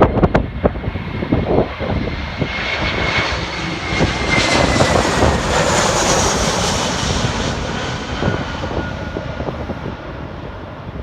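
Jet airliner passing low overhead on landing approach: its engine noise swells to a peak about halfway through and fades, with a high whine that falls slightly in pitch. Gusts of wind buffet the microphone at the start and end.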